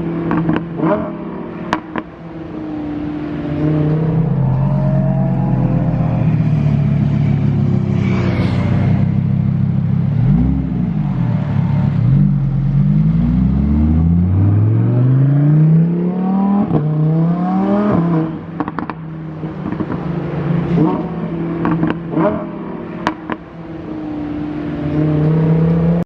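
Sports car engines idling with sharp throttle blips, and a car accelerating away through the gears, its engine pitch rising in several steps with a drop at each upshift.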